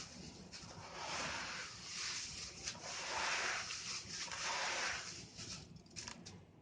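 Red sand-cement chunks crumbling and crunching, a gritty crackle that swells and fades in several waves, with a few sharp snaps near the end.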